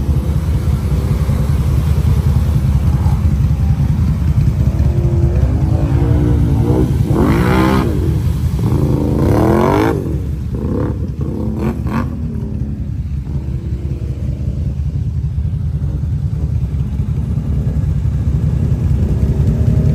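ATV engines running with a heavy, steady rumble. Through the middle, one engine revs up and down several times as a quad ploughs through mud and water.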